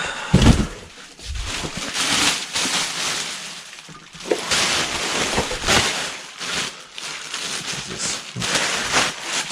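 Packaging rustling and scraping as an air compressor is pulled out of its box, with a low thump about half a second in.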